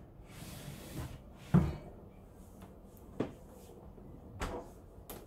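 Wooden kitchenette drawer sliding shut and closing with a knock about a second and a half in, followed by a few lighter knocks.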